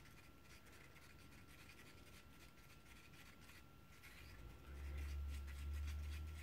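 Craft stick stirring pigment into epoxy resin in a small mixing cup: faint, quick, repeated scraping strokes. A low rumble comes in about four and a half seconds in.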